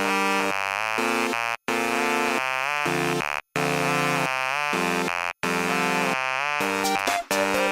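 Electronic music: a harsh, buzzing synthesizer plays chords that step in pitch about every half second, cut off by three brief dead silences. Near the end, sharp clicking percussion joins in.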